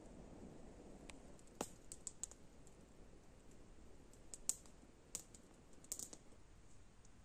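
Small, struggling campfire crackling faintly, with a handful of sharp, scattered pops and snaps, the loudest about four and a half seconds in.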